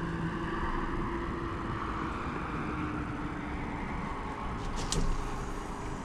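A steady low engine hum with wind and water noise, and a brief swish about five seconds in as a fishing rod is cast.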